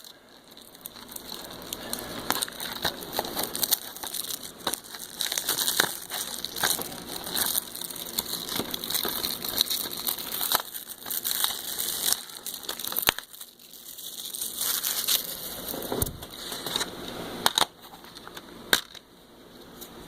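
Plastic shrink-wrap being torn and crinkled off a DVD case, with a steady crackle and sharp clicks and snaps now and then as the case is handled and opened.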